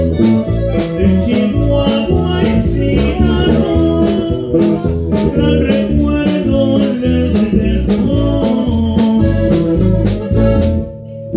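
Live norteño band playing with a quick, even polka beat: accordion, bajo sexto, bass and drums. The music cuts off suddenly near the end as the song finishes.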